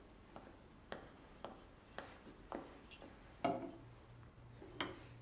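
Footsteps on a hard floor, about two a second, as a waitress carrying a tray walks up to a table; cups and crockery clink on the tray twice in the second half.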